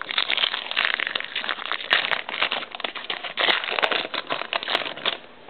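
Foil wrapper of a trading card pack crinkling as it is opened by hand, a dense run of crackles that stops about five seconds in.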